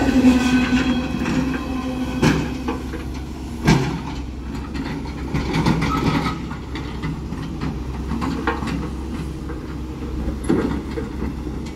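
Tail end of a freight train of autorack cars rolling past on the rails, the wheels clattering, with two sharp knocks about two and four seconds in. The sound then fades as the last car moves away.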